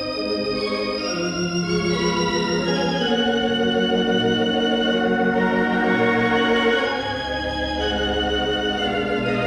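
Hilsdon 3/10 unit theatre pipe organ playing slow sustained chords with a wavering tremulant, the harmony changing every few seconds. The sound is bright and reverberant.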